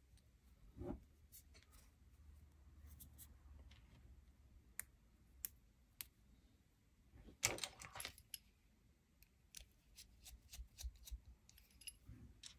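Faint, scattered clicks and light taps of small metal screws and chassis parts being handled and fitted while building a Mini-Z RC car's rear pod and T-plate, with a brief louder rattle a little past halfway.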